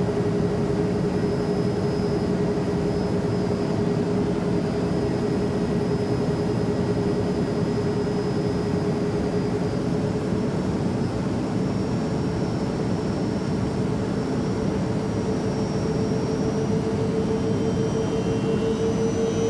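Steady airplane noise: a constant rushing drone with a hum running through it, the hum's pitch creeping slightly upward over the last few seconds.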